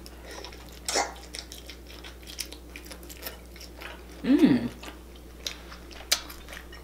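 Close-up chewing of sauce-covered rotisserie chicken, with many small wet mouth clicks and crackles. About four seconds in there is a brief hum of the voice.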